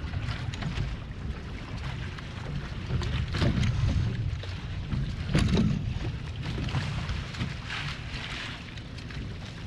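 Hobie 16 catamaran hulls slapping through chop under sail, water rushing and splashing along them, with wind rumbling on the microphone. Two louder splashes come about three and a half and five and a half seconds in.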